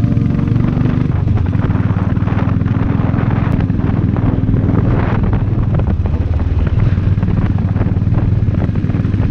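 Motorcycle engine running steadily under way, a dense low rumble with wind and road noise over it. A few lines of background music trail off about half a second in.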